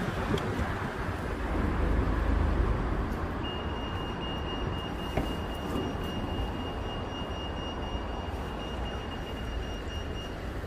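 Street ambience of road traffic: a steady low rumble of vehicles passing, a little louder about two seconds in. A thin, steady high tone runs from about three seconds in until near the end.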